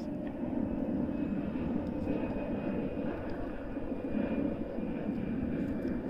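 Steady low engine rumble with no distinct events.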